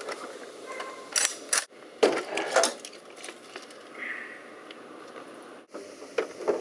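Objects being handled: a run of sharp clicks and clattering knocks about one to two and a half seconds in, then a couple more knocks near the end.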